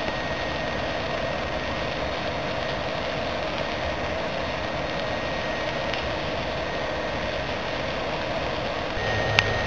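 BioLite CampStove's built-in fan running steadily, a whirring hum as it blows air into the burning charcoal. A single sharp click comes near the end.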